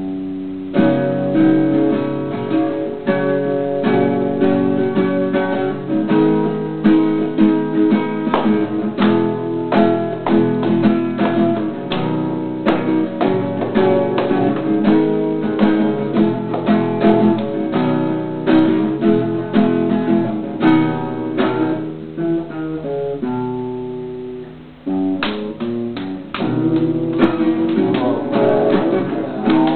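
Acoustic guitar strummed in chords at a steady, lively pace, with a short break about two-thirds of the way through before the strumming picks up again.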